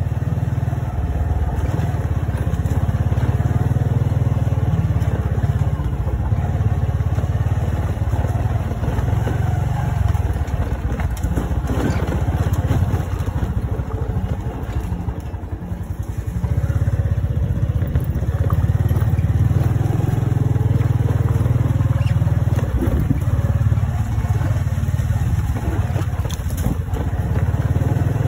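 Motorbike engine running as the bike rides along a dirt trail, a continuous low rumble that eases briefly about halfway through.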